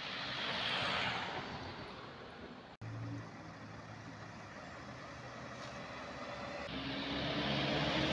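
Street traffic: a Volkswagen van drives past, its noise swelling and fading. After a brief break there is a steady traffic hum, then a minibus engine approaches and grows louder near the end.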